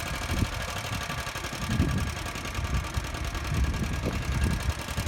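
Strong wind buffeting the microphone, an uneven low rumble swelling and dropping with the gusts over a steady rush.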